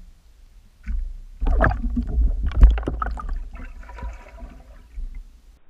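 Underwater sound of a pike striking a dead-bait rig: a sudden churning rush of water with a deep rumble and repeated sharp knocks, starting about a second in, loudest in the middle and easing off near the end.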